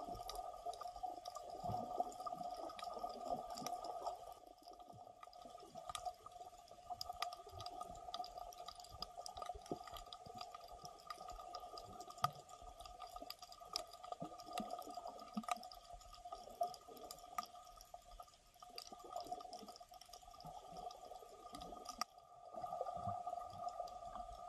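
Muffled underwater sound picked up through a camera's sealed dive case: many small irregular clicks and crackles over a steady hum.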